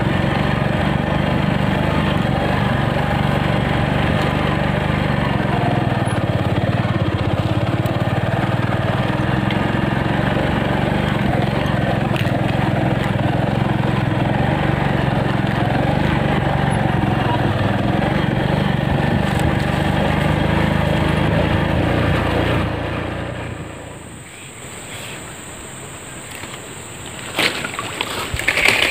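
Small motorcycle engine running at a steady speed while riding, then stopping about three-quarters of the way through. After that it is quieter, with a few sharp clicks near the end.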